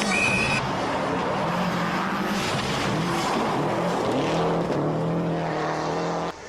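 Rally car engine running hard at speed, its note stepping up and down through the revs and gear changes, over tyre and road noise. A brief high steady tone sounds at the very start, and the sound cuts off abruptly near the end.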